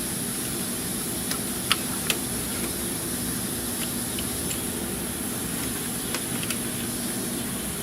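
Steady mechanical hum and hiss from a running fan or air-conditioning unit, with a few light clicks of hand tools against metal, twice about two seconds in and twice more near six seconds.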